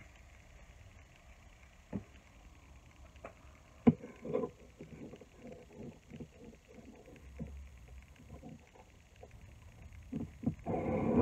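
Steel chisel being honed on a sharpening stone: a knock as it is set down, then short scraping strokes of the blade on the stone, turning into fast back-and-forth rubbing near the end.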